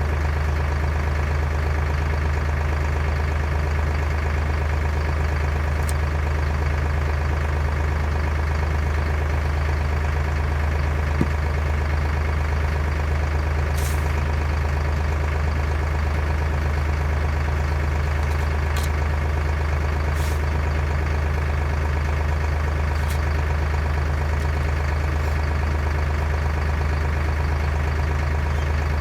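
Engine idling steadily, a low, even hum that does not change, with a few faint clicks over it.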